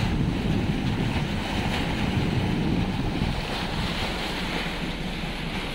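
Wind buffeting the microphone over the steady rush of water past a moving motorboat at sea.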